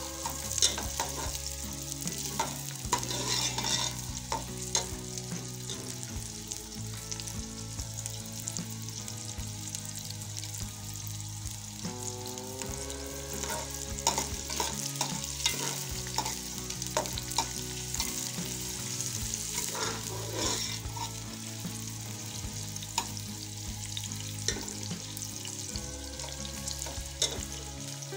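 Sliced onions sizzling steadily in hot oil in a metal pot, frying toward golden brown, with a metal ladle scraping and clinking against the pot as they are stirred.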